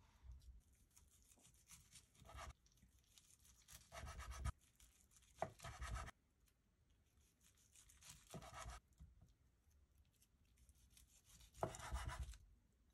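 Knife slicing through spam musubi (seaweed-wrapped rice, egg and spam) on a wooden cutting board. There are about five separate sawing cuts with a crisp rasp through the nori, several ending in a dull knock as the blade meets the board.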